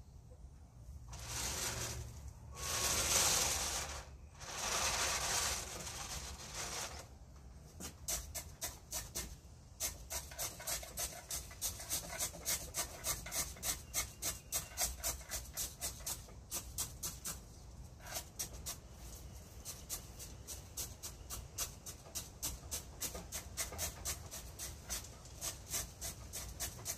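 Bamboo chopstick scraping and jabbing potting soil down around the roots in a bonsai pot: a few longer scraping strokes at first, then quick repeated pokes, about three a second.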